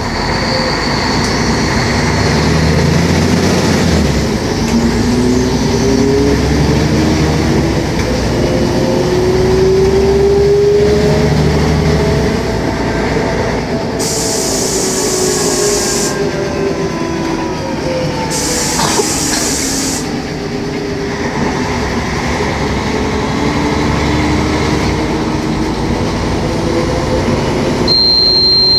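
Diesel engine and transmission of a Mercedes-Benz O500MA articulated bus under way, its pitch rising as the bus accelerates, dropping, then rising again. Two bursts of air hiss of about two seconds each come midway.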